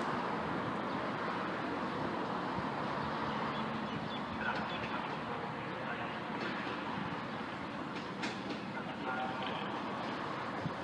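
Alstom-refurbished Comeng electric suburban train at the platform, a steady rumble with a few faint ticks.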